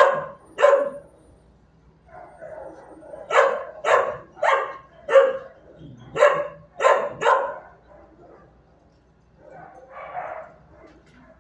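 Shelter dog barking repeatedly: short, sharp barks in quick clusters of two or three, about nine in all over the first eight seconds, then a softer bark or whine about ten seconds in.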